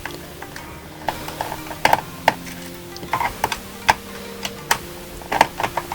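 Irregular sharp clicks and taps of a screwdriver and small screws as screws are taken out of a laptop's plastic case, over soft background music.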